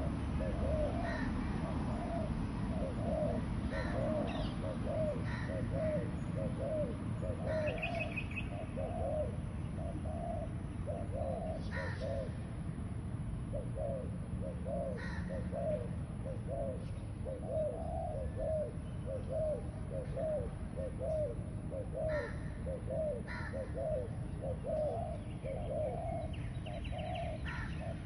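Spotted doves cooing, their low coo notes repeated a couple of times a second. Brief chirps of other birds come now and then, over a steady low rumble.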